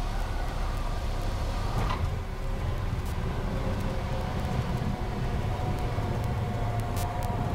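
Cessna 172's piston engine and propeller running steadily as the plane rolls along the runway, heard from inside the cockpit, with a brief sweep about two seconds in and a few clicks near the end.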